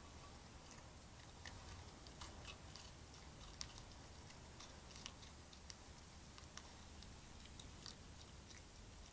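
Faint, irregular crunching clicks of a fox and a hedgehog chewing food from shallow dishes, over a steady background hiss.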